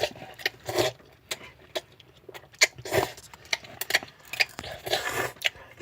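Ramen being eaten close to the microphone: several short noodle slurps and wet chewing, broken up by many small sharp clicks.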